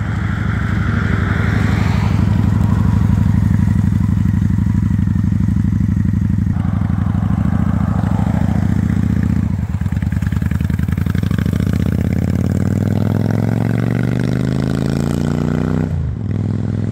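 V-twin cruiser motorcycle engine running at low speed as the bike rolls up and pauses, then pulling away, its note falling over the last few seconds.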